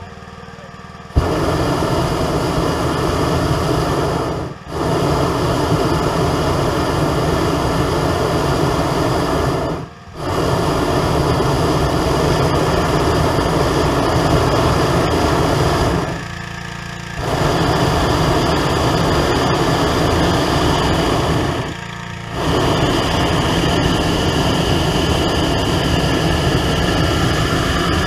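Hot air balloon propane burner firing in long, loud blasts into the envelope during a hot inflation, with the basket on its side. It starts about a second in, breaks off briefly twice, pauses for about a second twice more, and keeps going until near the end. A quieter steady engine hum runs underneath and is heard in the pauses.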